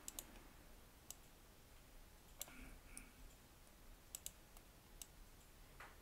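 Faint, scattered clicks of a computer mouse and keyboard over near-silent room tone, about nine in all.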